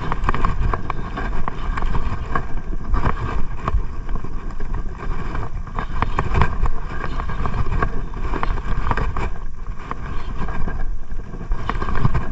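Wind buffeting the microphone in uneven gusts, with scattered sharp clicks and knocks from handling the rod and baitcasting reel.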